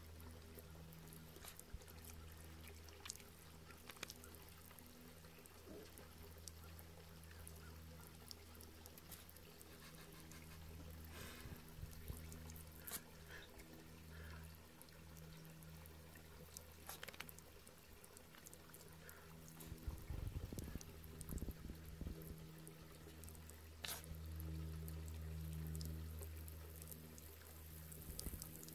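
Faint trickle of water running from a garden hose spray nozzle, with scattered small clicks and a low steady hum underneath. A louder, rougher rumble comes in about twenty seconds in.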